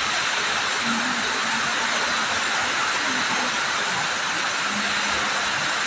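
Heavy rain pouring down, a steady, even hiss of falling water.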